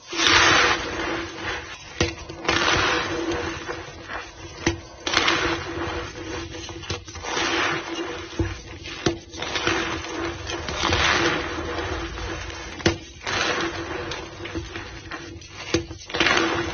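Powdered white gym chalk being squeezed and pressed back into a block by hand, giving irregular squeaky crunches every second or two with sharp little cracks among them. A steady low tone hums underneath.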